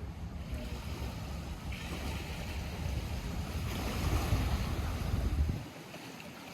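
Lake water lapping at the shore, a steady noisy wash, with wind rumbling on the microphone that drops away near the end.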